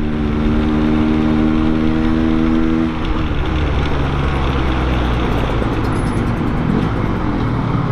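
Yamaha RX-King two-stroke motorcycle riding in slow traffic, the engine running with wind on the microphone. For the first three seconds a steady pitched drone sits over it, then gives way to a rougher rumble.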